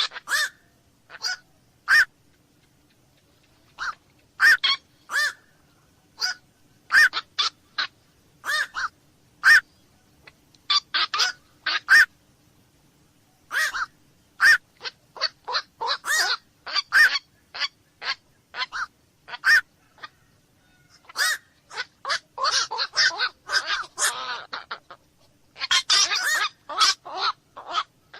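Black-crowned night heron calling: short, harsh, honk-like single calls, repeated irregularly and often in quick runs, becoming a denser, rougher string of calls in the last few seconds.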